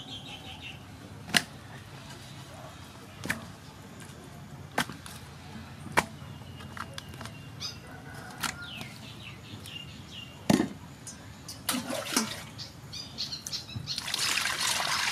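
A few sharp knocks a few seconds apart as raw squid are handled in an aluminium basin. Near the end water is poured from a bowl over the squid into the basin with a rushing splash. Small birds chirp in the background.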